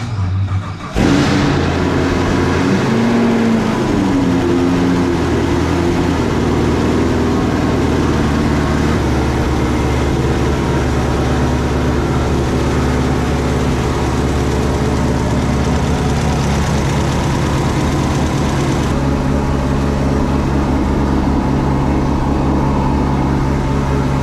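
Chevrolet Corvette C7 Stingray's 6.2-litre LT1 V8 starting about a second in and then idling steadily. The idle pitch wavers in the first few seconds before settling, and its tone changes again near the end.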